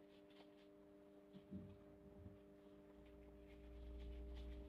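Near silence: a faint steady electrical hum with a few soft ticks, and a low rumble coming in about three seconds in.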